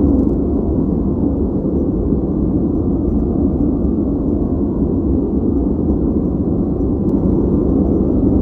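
Steady noise played back for focus, sold as white noise but low and deep, with almost no hiss; it holds even throughout without change.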